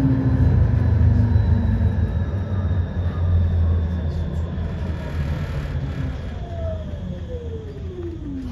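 Inside a moving electric transit vehicle that is slowing down: a steady low rumble that fades a little, with a whine from the electric drive gliding down in pitch over the last two seconds.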